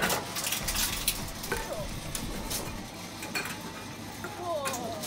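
Empty aluminium drink cans clinking and knocking together as they are handled and pushed one by one into a reverse vending machine's intake for recycling. There are many short, sharp metallic clinks at irregular intervals.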